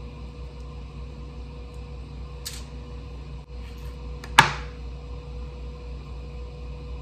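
Anova sous vide precision cooker running with a steady hum as it circulates the water bath. A light click comes about two and a half seconds in, and a sharp knock of a knife against a wooden cutting board comes a couple of seconds later.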